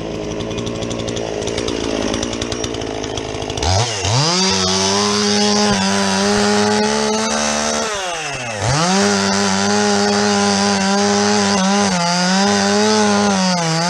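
Chainsaw's two-stroke engine idling with a rough, rapid chug, then revved to full throttle about four seconds in. It drops back briefly about halfway through and is revved up again, holding at high speed.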